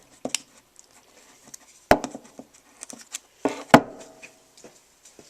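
A blade chopping into a small piece of juniper wood: two sharp knocks, the second the loudest, nearly two seconds apart, with lighter taps and knocks between.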